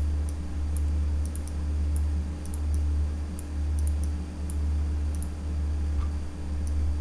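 Steady low electrical hum that swells and dips about once a second, with faint scattered clicks of a computer mouse.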